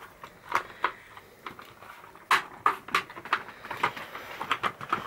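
A string of irregular sharp clicks and taps from things being handled, several in quick succession about two and a half seconds in.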